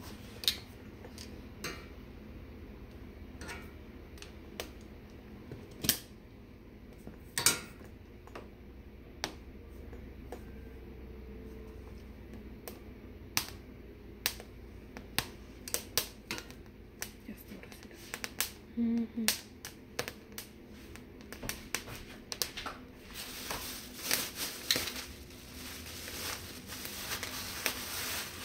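Metal tongs clicking and knocking against the gas stove's grates as charred poblano peppers are turned over the flame, in scattered sharp taps. Near the end a plastic bag crinkles as the roasted peppers are wrapped up.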